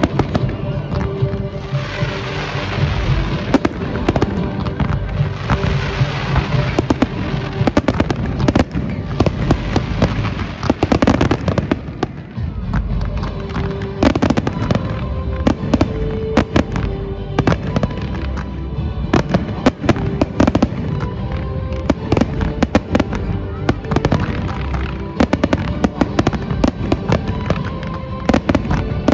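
Fireworks display: a continuous run of bangs and crackling bursts, some in quick clusters, with music playing underneath.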